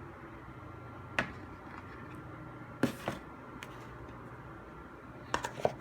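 A few light clicks and taps from handling an iPhone 8 retail box and its packaging: one about a second in, two close together near the middle, and a quick cluster near the end, over a low steady hum.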